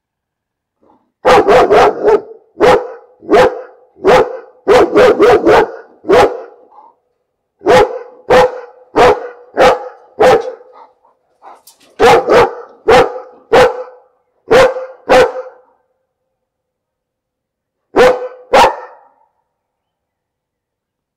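A dog barking repeatedly: loud, sharp barks in runs of several, one to three a second, broken by short pauses, with a last pair of barks after a longer gap near the end.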